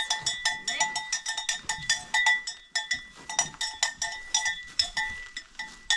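Metal neck bells on livestock clanking irregularly, several strikes a second, each with a ringing metallic tone, as the belled animals move about.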